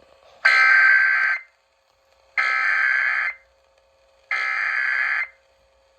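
Emergency Alert System SAME header: three screeching bursts of digital data tones, each about a second long with about a second's gap between them. The header encodes a Child Abduction Emergency (CAE) alert.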